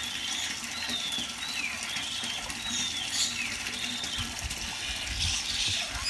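Many birds chirping and calling over one another in short, falling calls, over a steady rushing background noise, with a few soft low thumps about four to five seconds in.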